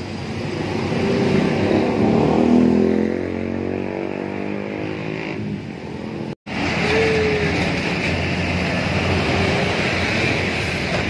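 Coach bus engine running as the bus moves slowly off, its pitch rising and falling over the first few seconds, with passing road traffic. The sound cuts out for an instant just past the middle.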